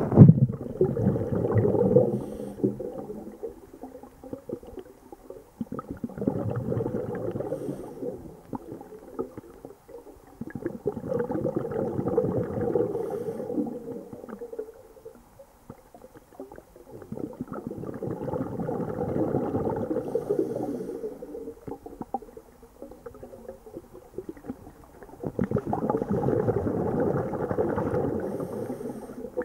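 Scuba diver's exhaled air bubbles gurgling past the camera underwater, in five long bursts about every six to seven seconds, with quieter gaps between as the diver breathes in.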